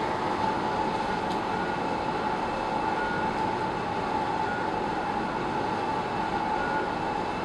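Bore piling rig running with a steady mechanical drone and a constant hum-like tone, without any loud knocking strikes.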